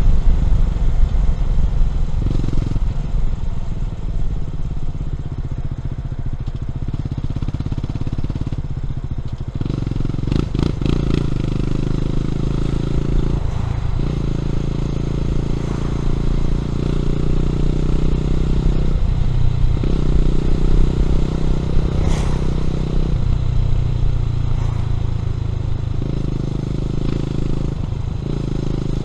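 Honda CB400SS's air-cooled single-cylinder engine running through a Yamamoto A-spec exhaust while the bike is ridden. It runs lighter for the first nine seconds or so, then pulls harder, with brief breaks every few seconds as the gears change.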